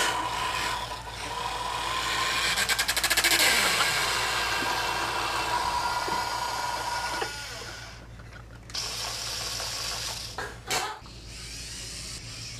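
Whirring of a small electric motor and gears: a tank-tread robot's mechanism working as it squirts ketchup. It runs into a fast rattle about two to three seconds in, stops briefly about eight seconds in, resumes, and ends with a couple of sharp clicks.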